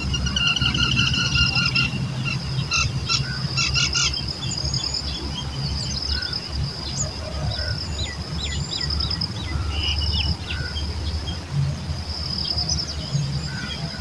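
Several birds chirping and calling, with clusters of quick notes in the first few seconds and scattered calls later. A steady, high, fast-pulsing trill runs underneath, over a steady low rumble.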